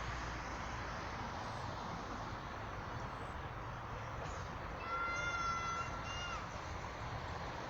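A steady outdoor hiss, with one long, even-pitched animal call about five seconds in, held for about a second and a half and dipping slightly at its end.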